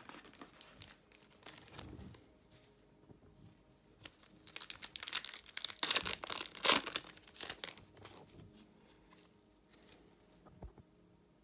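Foil wrapper of a Panini Hoops basketball card pack being torn open with gloved hands, crinkling loudly for a few seconds from a little before halfway through, then quieter rustling as the cards are pulled out.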